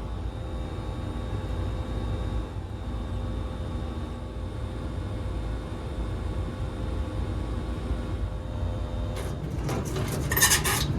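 A steady low mechanical hum with a few constant tones, then several short hissing bursts about nine seconds in.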